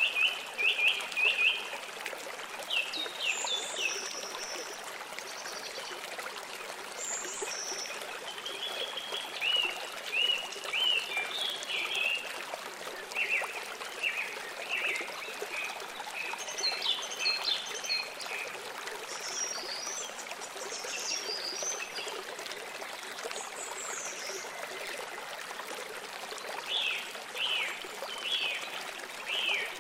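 A stream running with a steady trickle, and birds chirping over it in repeated short runs of quick high notes.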